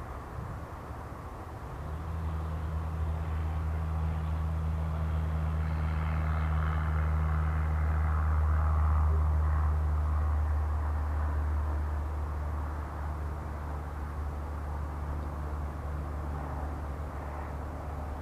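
Low, steady aircraft engine drone that comes in about two seconds in, swells to its loudest around the middle and slowly eases off.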